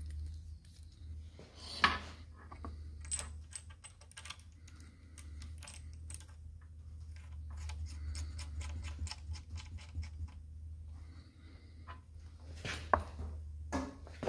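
Light metallic clicks and taps of brass garden hose fittings being handled and threaded together by hand, with a sharper knock about two seconds in and a few more near the end. A steady low hum runs underneath.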